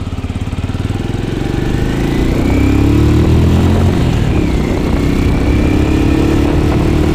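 Benelli Imperiale 400's single-cylinder engine under way as the motorcycle accelerates, growing louder from about a second in. The revs climb, dip briefly around the middle, then climb again.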